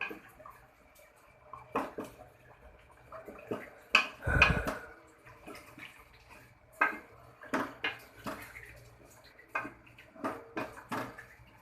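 A spatula knocking and scraping against a cooking pot while chicken is stirred in its masala, in scattered clinks with a heavier knock about four seconds in.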